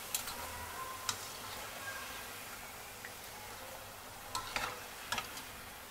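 Lauki (bottle-gourd) kofte deep-frying in hot oil in a metal kadhai, a steady sizzle. A few sharp metallic clinks, near the start, about a second in and several near the end, come from a wire-mesh strainer scooping the kofte out against the pan.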